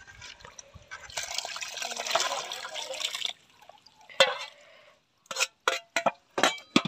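Liquid poured from a metal bowl into a metal cooking pot, a steady splashing pour lasting about two seconds, followed by a few sharp clinks of a metal ladle against the bowl near the end.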